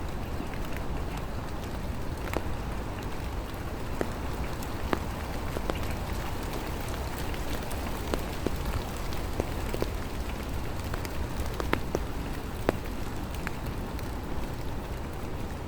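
Rain falling steadily: a continuous hiss with a low rumble underneath and individual drops ticking sharply at irregular intervals.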